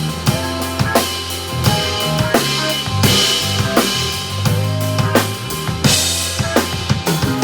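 Drum kit played in a fast, busy groove: bass drum, snare and cymbal strokes over sustained bass notes from a backing track.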